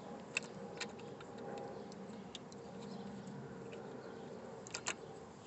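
A few light clicks of a replacement shift knob being handled and fitted onto a column shift lever, two near the start and two close together near the end, over a faint steady hum.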